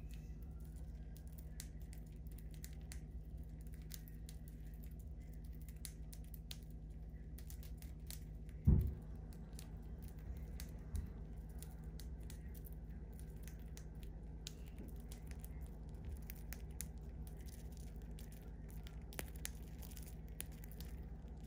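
Budgerigars cracking and husking seeds from a mixed seed feed in a person's palm: a constant scatter of tiny quick clicks over a low steady hum. A single dull thump about nine seconds in is the loudest sound.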